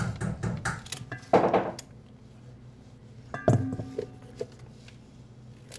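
Knife scraping the skin off a carrot in quick strokes, about five a second, stopping about two seconds in. About three and a half seconds in comes a single metal clink with a short ring.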